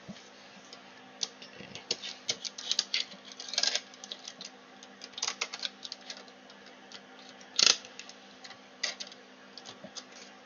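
Irregular light clicks and taps of small tools being handled at a soldering bench, one sharper click about three quarters of the way through, over a faint steady hum.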